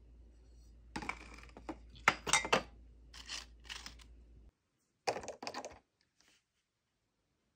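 Potato chips crackling and crunching in a series of crisp bursts, loudest a couple of seconds in, as they are handled from a bowl. A short crinkle of a clear plastic clamshell package follows near the middle.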